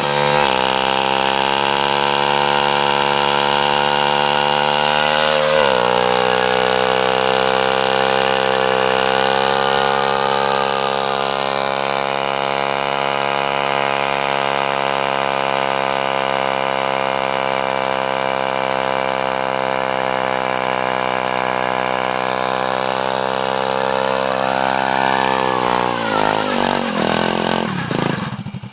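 Honda Biz scooter's small single-cylinder four-stroke engine held at high revs in a burnout, the rear tyre spinning against the asphalt. The revs dip slightly twice in the first six seconds, then fall away near the end.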